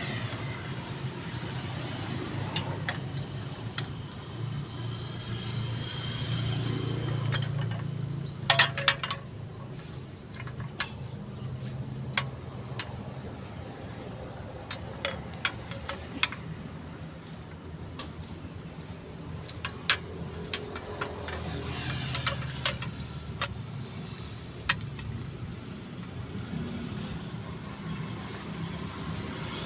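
A car engine running steadily, with scattered sharp clicks and knocks, the loudest a short cluster about eight seconds in.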